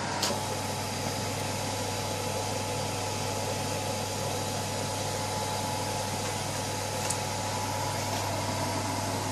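A steady mechanical hum with a hiss over it and a faint high whine, broken by two light clicks, one just after the start and one about seven seconds in.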